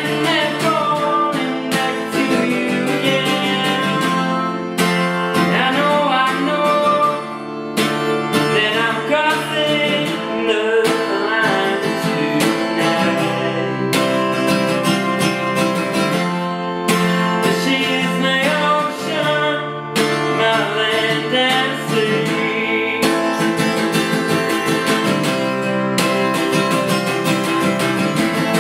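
Acoustic guitar with a capo strummed steadily in a folk song, with a man singing phrases over it.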